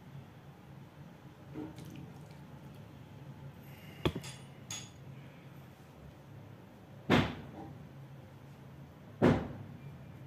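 Knocks and clicks from handling an opened laptop on a work surface: two small clicks about four seconds in, then two louder knocks about two seconds apart, over a faint steady low hum.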